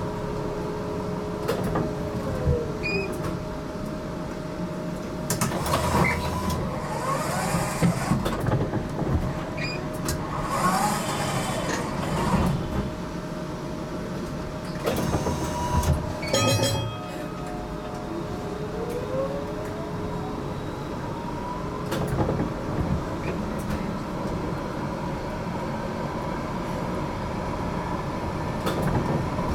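Interior of a GTL8 articulated tram running on rails: a steady rumble with an electric whine from the drive that falls in pitch once and later rises again. Knocks from the running gear are scattered through it, and about two-thirds of the way through there is a short burst of rapid ticking.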